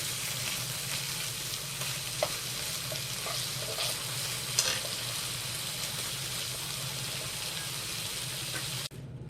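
Tofu, mushrooms, onion and sliced meat sizzling in a frying pan, with a few short clicks of a utensil stirring them. The sizzling cuts off suddenly near the end.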